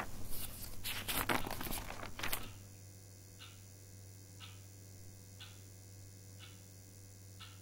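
Rustling and handling noises for about two and a half seconds. Then a faint low hum with soft ticks about once a second.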